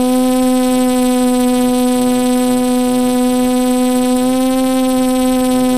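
Multirotor drone's motors and propellers humming steadily while it hovers, one steady pitch with overtones that rises slightly about four seconds in.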